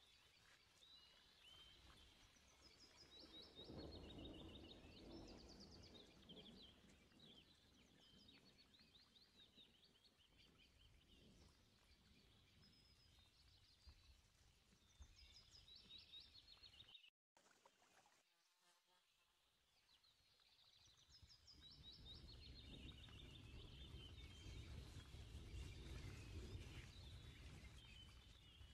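Near silence with faint, quickly repeated high chirping in the background and soft low rumbles from time to time.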